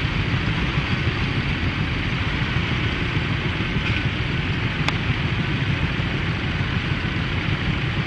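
Steady wind rumble on the microphone over vintage tractor engines running in the distance.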